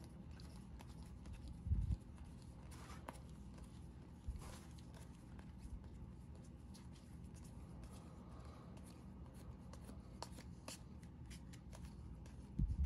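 Trading cards being handled: quiet, scattered rustles and light clicks of cards being flicked and sorted, with a soft low thump about two seconds in and another near the end, over a faint steady hum.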